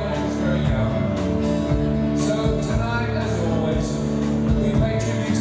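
A live rock 'n' roll band playing, with electric bass guitar, drum kit, electric guitar and keyboards under a male lead vocal, the drums keeping a steady beat of about two strokes a second.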